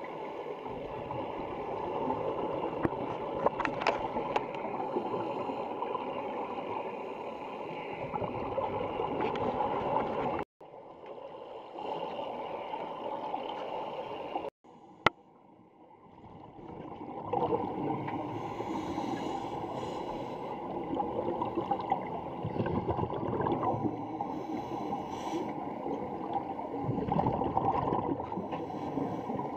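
Scuba divers' exhaled air bubbles and regulator breathing heard underwater: a continuous muffled bubbling and gurgling. It breaks twice around the middle in brief drop-outs to near silence, with a single sharp click just after the second.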